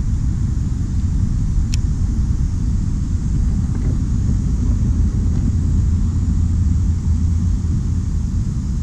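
Steady low rumble of wind on the action camera's microphone, with one sharp click a little under two seconds in.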